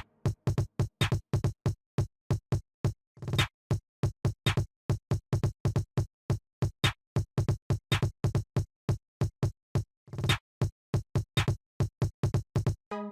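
Electronic dance music with a fast drum-machine beat, in sharply chopped pulses about four a second.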